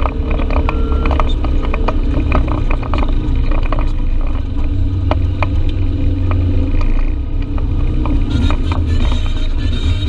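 Side-by-side off-road vehicle's engine running steadily, with frequent short clicks and knocks throughout.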